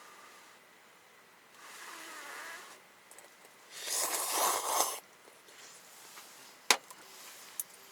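Udon noodles being slurped in two bursts, the second louder and about a second long, followed by a single sharp click.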